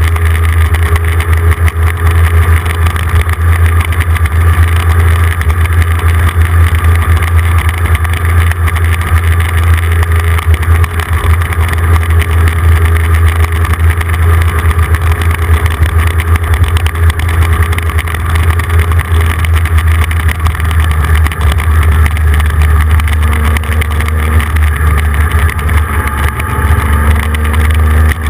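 Motorcycle at road speed, recorded onboard: a steady engine drone under loud, deep wind rumble on the microphone. The engine note changes slightly about two-thirds of the way in.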